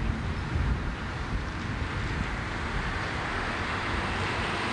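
Wind buffeting a camcorder microphone: a steady, irregular low rumble under a broad hiss.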